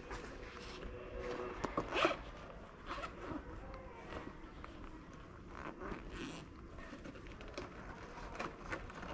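Backpack zipper pulled open in several short rasps, the loudest about two seconds in.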